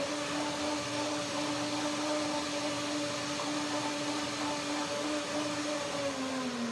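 Countertop blender motor running at a steady speed, blending a thick cashew, nectarine and orange juice dressing for a second time. The hum holds one steady pitch, then winds down near the end as the blender is switched off.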